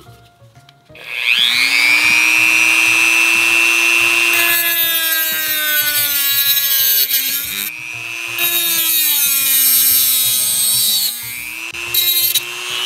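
Dremel rotary tool with a cut-off wheel spinning up with a rising whine about a second in, then grinding through a deck screw, its pitch sagging under load. It lets up briefly a couple of times and picks up again.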